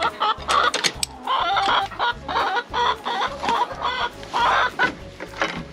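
Backyard chickens clucking in a string of short, repeated calls, over background music with a steady low beat.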